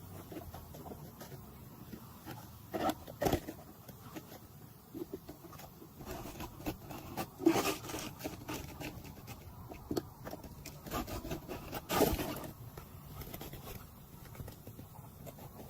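Scattered scrapes and knocks of work on an asphalt-shingle roof, with a few louder strikes about three, seven and twelve seconds in.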